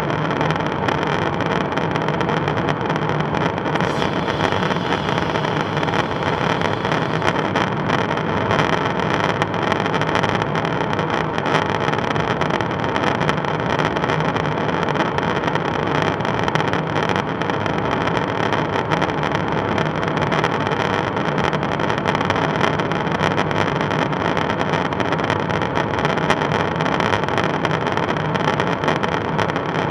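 Steady, loud drone of a KC-135 Stratotanker in flight, heard inside the aircraft at the boom operator's station: jet engine and rushing airflow noise with a few faint steady tones, unchanging throughout.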